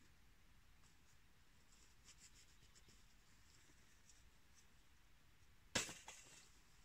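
Quiet with faint small ticks and rustles, then a sharp click or knock just before the end, followed at once by a smaller one.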